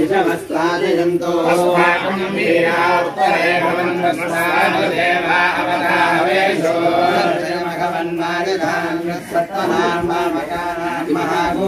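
A group of male voices chanting Vedic mantras together in one continuous recitation.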